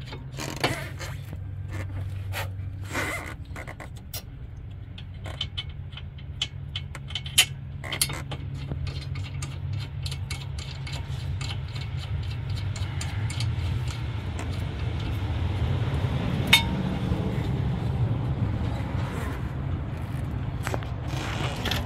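Hands working at a car's front brake caliper: irregular metallic clicks and taps as parts and a bolt are handled, most of them in the first half, with one sharper ringing clink near the end, over a steady low hum.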